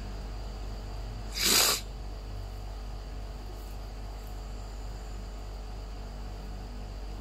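A single short, sharp hissing burst about a second and a half in, lasting about half a second, over a steady low hum.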